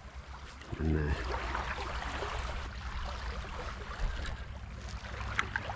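Small sea waves lapping and washing in a steady hiss, with wind rumbling on the microphone and a few faint ticks.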